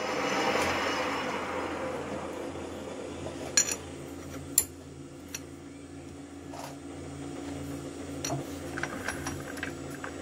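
Metal lathe running: a cutting hiss in the first second or two fades away, leaving the steady hum of the lathe's motor and gearing. Two sharp metallic clinks come about a second apart a few seconds in, with lighter ticks near the end.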